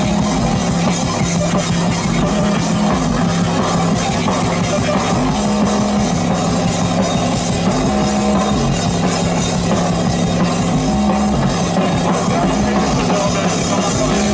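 Live noisy rock band playing loud and dense: a drum kit over distorted synthesizer, with heavy low notes that shift every second or two.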